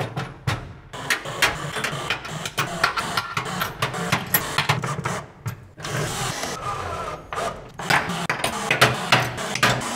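Steel wrenches and pegboard hooks clinking and clicking as tools are hung on a pegboard: many quick, irregular metallic clicks, over a steady low hum.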